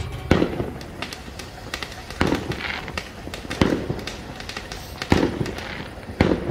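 Ground firework fountain (a Swiss volcano) hissing as it sprays sparks, with five sharp firework bangs about every second and a half, each echoing briefly.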